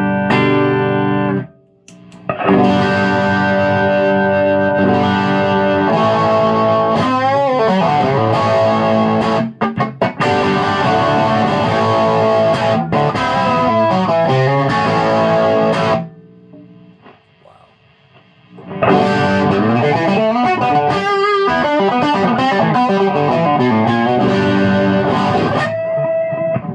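Electric guitar with P90 pickups (a Reverend Club King 290) played through a Ceriatone One perCentaur overdrive pedal with every knob at halfway, into an amp: ringing chords and bent, wavering lead notes. A short break about two seconds in, and a quieter lull about two-thirds through.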